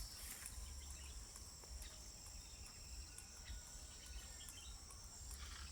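Insects buzzing in a steady, faint, high-pitched drone.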